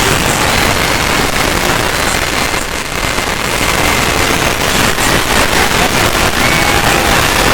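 Loud, harsh crackling noise from an electronically distorted sound effect, with faint high pitched tones running through it. It starts abruptly and stays dense and even.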